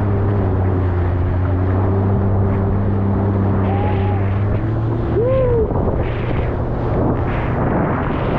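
A motor running steadily with an even low hum, under a rushing wash of wind and water noise.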